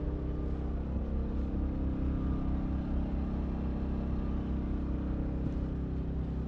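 Steady low rumble of an idling diesel engine, with no change in pace.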